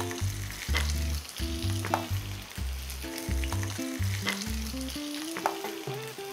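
Oil sizzling around a whole floured mandarin fish shallow-frying in a very hot nonstick pan, with a few sharp crackling pops.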